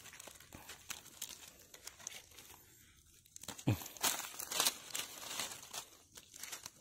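Dry leaves and twigs rustling and crackling, with a few sharper snaps about three and a half to five seconds in, as wild pak wan (Melientha suavis) shoots are picked by hand in the undergrowth.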